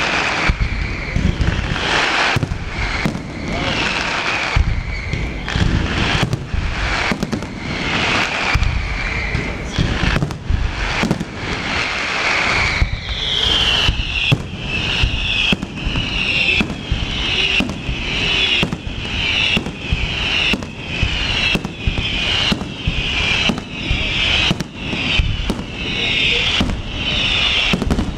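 Fireworks display: a dense, continuous barrage of bangs and cracks. From about halfway through, a run of descending whistles, about one a second, sounds over the bangs.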